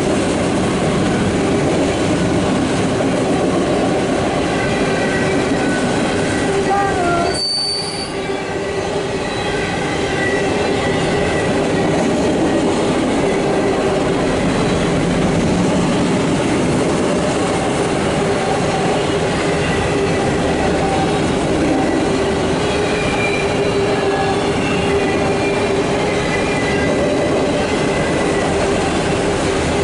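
Empty CSX autorack freight cars rolling past at close range: a continuous rumble and rattle of the cars with steady, high-pitched wheel squeal held over it.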